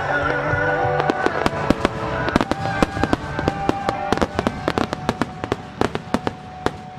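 Starmine fireworks barrage: a rapid run of shell bursts and crackling pops starting about a second in and stopping just before the end, over music with held notes.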